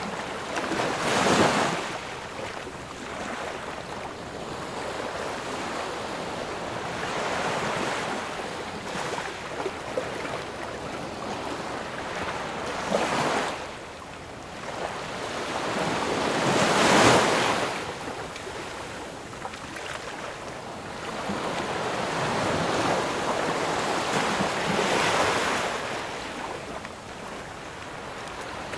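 Ocean waves breaking and washing on a shore, a steady surf wash with several larger waves cresting, the loudest about a second and a half in and about seventeen seconds in.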